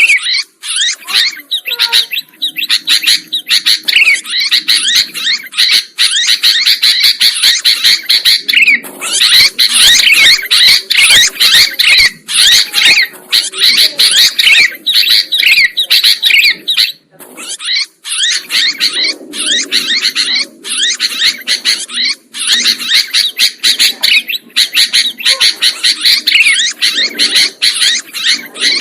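Sooty-headed bulbul (kutilang) chirping and chattering noisily, fast calls crowding one on another almost without pause, broken only by a couple of short gaps.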